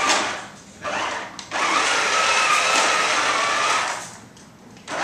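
The motor and gears of a 1980s 24-inch Lost in Space robot toy whirring as it drives across the floor. It runs in spurts: a short one, a brief one about a second in, then a longer run of about two and a half seconds, and it starts again near the end.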